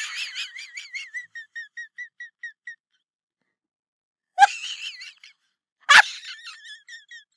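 High-pitched, squealing laughter in short wheezy pulses, about four or five a second, fading away. It breaks out again twice, about four and six seconds in.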